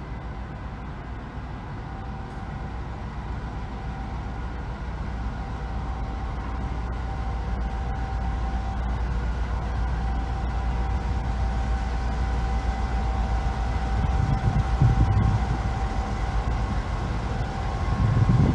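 Aurizon ACD-class diesel-electric freight locomotive approaching at low speed: a steady low engine rumble with a thin, level whine above it, growing gradually louder, with a heavier swell of rumble near the end as it draws close.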